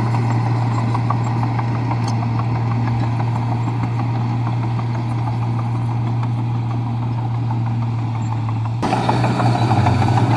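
Komatsu bulldozer's diesel engine running steadily with a low hum and a light regular clatter; about nine seconds in it grows louder and rougher.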